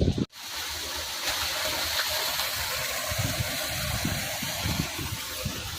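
Steady rush of water, as from floodwater running through a flooded street.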